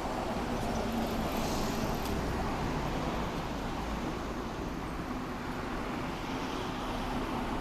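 Steady rumble of passing vehicles, with no distinct bell strokes.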